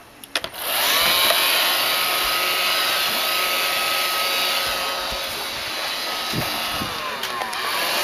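Roomba robot vacuum running, with a dog toy's cord caught under it: after a brief lull and a few clicks it starts up about a second in, then a steady motor whine over brush noise holds, dropping in pitch near the end.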